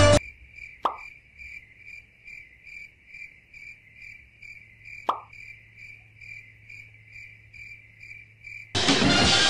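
Crickets chirping steadily, about three chirps a second, over a low hum, with two short plops about a second in and again about five seconds in. Music starts again near the end.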